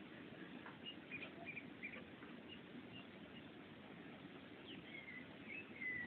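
Faint, scattered short high chirps, most likely small birds calling, over a low steady hiss.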